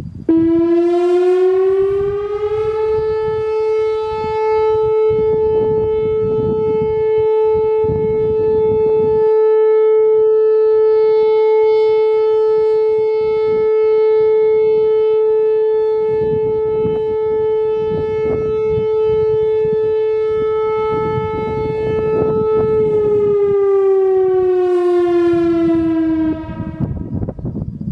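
Whelen WPS-4004 electronic warning siren sounding a steady alert tone of about 435 Hz: it glides up in pitch over the first two seconds or so, holds one steady tone for about twenty seconds, then glides down and stops near the end. A low rumble of wind on the microphone runs underneath.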